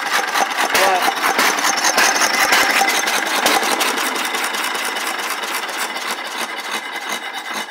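Cushman Model C 4 hp binder engine running with a rapid, even mechanical beat, growing gradually quieter toward the end.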